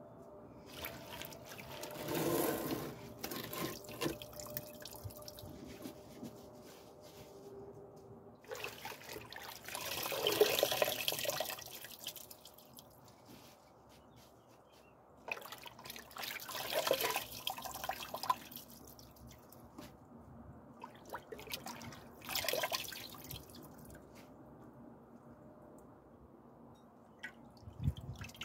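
Water splashing and dripping as handfuls of washed garlic mustard leaves are lifted out of a pot of water, in about four louder spells with quieter dripping between.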